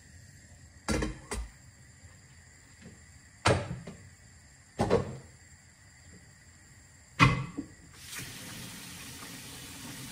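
A stainless steel saucepan and its spoon clatter against the metal pan support of a gas hob: five sharp metallic knocks, the loudest near the end. About eight seconds in, a steady hiss begins.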